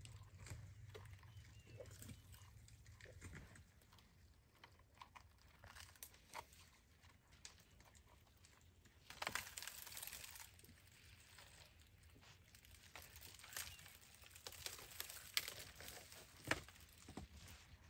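African elephant browsing on a thorny bush: faint snaps and cracks of twigs and rustling leaves as her trunk tears branches off. A longer rustle comes about nine seconds in, and a few sharper snaps come near the end.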